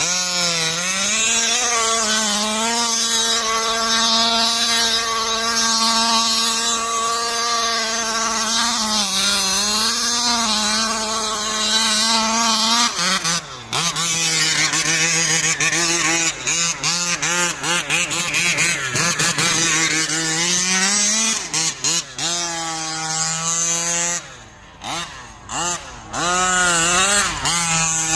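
Two-stroke gas engine of a large RC car running, holding a fairly steady pitch with a couple of short dips for the first dozen seconds. For the rest, the throttle is blipped so the engine revs up and down again and again, with the sound briefly dropping away several times near the end.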